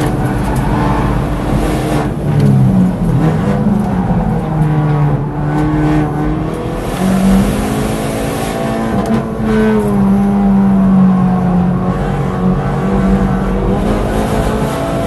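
Hyundai i30N's turbocharged 2.0-litre four-cylinder engine driven hard on a race track, heard from inside the cabin. The engine pitch falls and rises several times as the car brakes, changes gear and accelerates through corners, over steady tyre and road noise.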